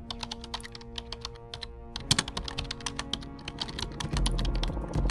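Keyboard-typing sound effect, quick clicks several a second, over background music; a heavier bass comes in about four seconds in.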